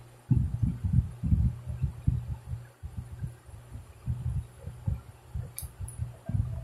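Irregular low thuds and rumbling from fabric being handled and pressed down by hand close to the microphone, over a steady low hum. A brief sharp click comes about five and a half seconds in.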